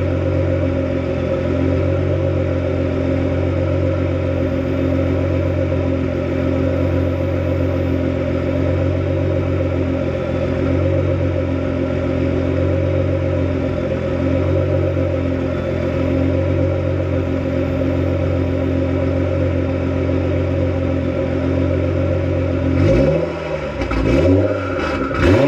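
Nissan R35 GT-R's twin-turbo 3.8-litre V6, tuned to about 850 bhp, idling steadily, then blipped about three times in quick succession near the end, with a turbo whistle rising over the revs.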